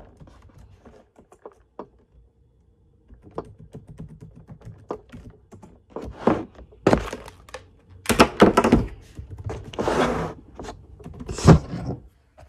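Irregular knocks and thuds, faint and sparse at first, with several louder ones from about six seconds in and a brief rustle near ten seconds.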